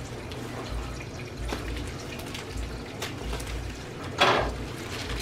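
Black plastic parcel bag being cut open with scissors and handled, giving quiet crinkling and a few faint snips, then a short, louder plastic rustle about four seconds in as a wrapped item is pulled out.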